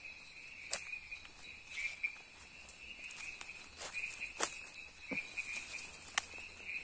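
A night insect chorus: a steady, high chirring band of crickets. A few sharp crackles break through it, about three-quarters of a second in, around four and a half seconds in, and again near the end.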